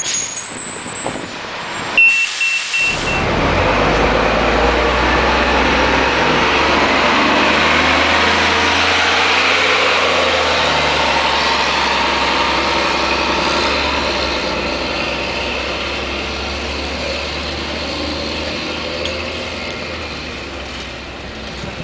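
Diesel engine of a Gillig Phantom city bus pulling away from a stop and accelerating off down the street, loudest about eight to ten seconds in, then fading as it moves away.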